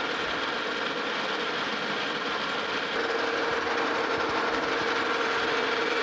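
Metal lathe running with a boring bar taking a roughing cut inside the bore of a steel ring: a steady mechanical hum with a held tone, a little louder from about three seconds in.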